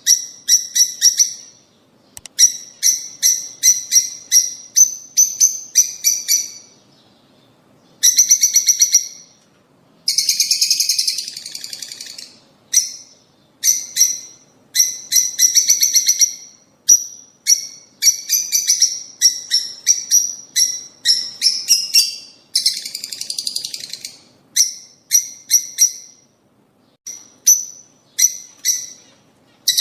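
Lovebirds chattering: fast runs of shrill, high-pitched chirps in bursts of a second or two, broken by short pauses, with a few stretches of denser, louder chatter.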